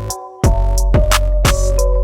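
Hip-hop beat with drum-machine drums; after a brief drop, a deep bass comes in about half a second in and carries on under the beat.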